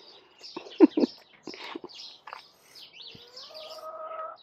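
Small birds chirping repeatedly in the background. About a second in there are a few short, louder low sounds, and near the end a steady humming tone is held for about a second.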